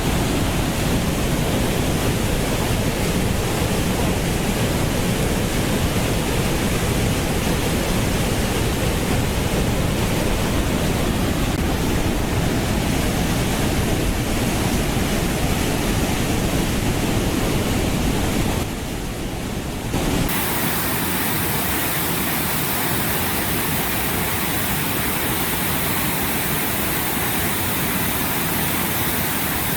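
Waterfall: a steady, loud rush of falling water. About two-thirds of the way through it dips for a second or so, then comes back hissier and thinner in the low end, as a different waterfall or viewpoint.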